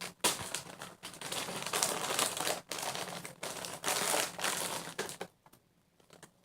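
Crinkling and rustling as squishy toys are handled, in quick uneven stretches, stopping about five seconds in.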